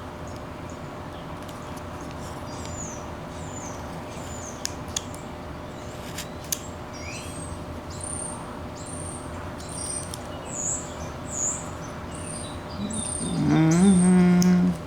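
A small bird chirping over and over, short high notes about once a second, over a steady background hum, with a few sharp clicks in the first half. Near the end a loud low tone is held for about a second and a half.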